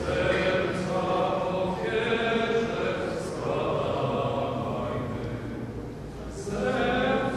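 A congregation singing a hymn together in a church, held notes in lines with short breaks between phrases.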